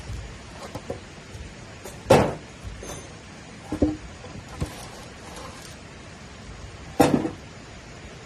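Four sharp knocks, a second or two apart, with fainter clicks between them; the loudest come about two seconds in and about seven seconds in.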